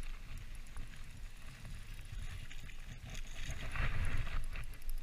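Wind rumbling on the body-mounted camera's microphone, with the rustle of a winter jacket and gloves as an angler holds a bent spinning rod against a hooked fish. A louder rush of noise swells about four seconds in.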